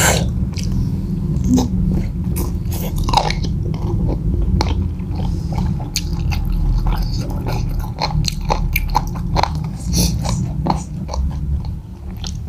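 Two people chewing and biting fried chicken, with many small, sharp mouth clicks and smacks.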